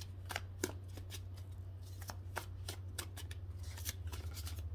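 A thick deck of reading cards being shuffled by hand: a quick, irregular run of light card slaps and clicks, over a low steady hum.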